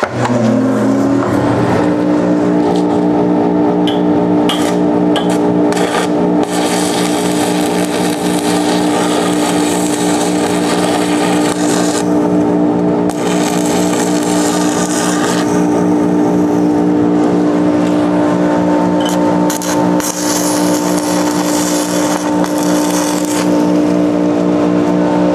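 An electric ventilation blower starts up, its motor whine rising over the first two seconds and then running steadily and loudly. Over it, a stick-welding arc crackles and hisses in long stretches, stopping briefly about halfway through and again for a few seconds after that.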